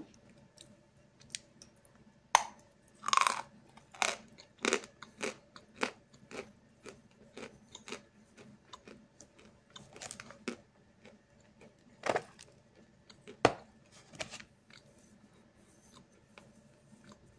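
Close-miked chewing of a chunk of 'Snezhok' chalk: irregular, crisp crunches as the chalk breaks between the teeth. They are loudest from about two to five seconds in and again around twelve to fourteen seconds, and die away near the end.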